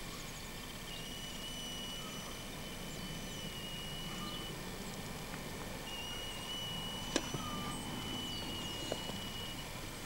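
Open-field outdoor ambience through an old camcorder microphone: a steady hiss with a thin high tone that comes and goes, a few faint short chirps, and a sharp click about seven seconds in, with a smaller one near the end.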